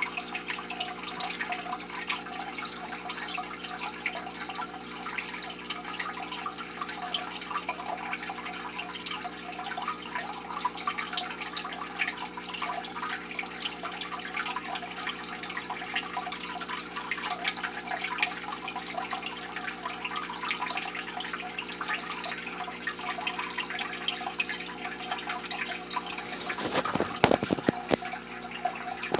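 Aquarium water trickling and dripping, with fine bubbling over a steady low hum. A few knocks come near the end.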